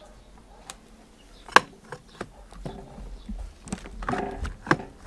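Sharp clicks and clatter of a long drill bit being fitted into a rotary hammer drill's chuck, the loudest click about one and a half seconds in; the drill itself is not running.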